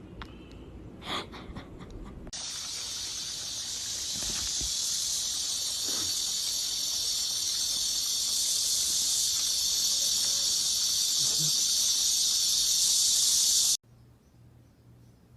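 A steady, high-pitched hiss starts about two seconds in, grows slowly louder, and cuts off suddenly near the end.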